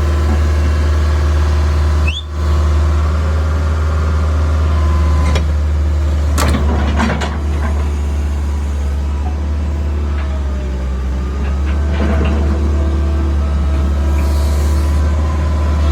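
Case CX160 excavator's diesel engine running steadily, with whining tones that rise and fall in pitch as it works and a few short knocks about halfway through.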